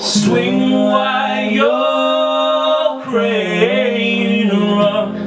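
Two male voices singing together, drawing out long held notes that bend in pitch, with a brief break about three seconds in.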